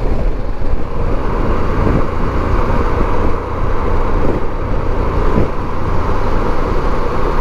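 Steady wind and road noise of a Harley-Davidson Pan America motorcycle cruising at highway speed, with wind rushing across the camera microphone.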